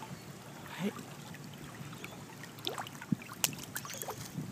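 Water lapping and trickling at a camera held at the surface, with a few small splashes and clicks.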